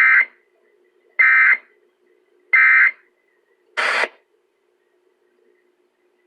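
Emergency Alert System SAME data bursts: three short screeching digital tones about 1.3 s apart, the end-of-message code that closes an alert, followed by a fourth, harsher burst.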